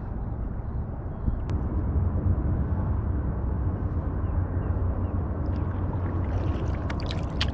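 Water gurgling around a kayak as it is paddled, over a steady low rumble, with a few sharp clicks near the end.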